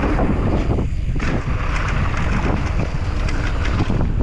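Wind buffeting the microphone of a camera on a mountain bike riding downhill, over a steady rumble of the tyres on the trail. Short clicks and rattles come from the tyres crossing wooden boardwalk slats onto a dirt trail.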